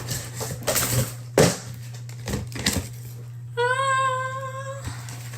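A few short clicks and knocks of small objects being handled, then a woman's high, held 'ooh' lasting about a second, over a steady low hum.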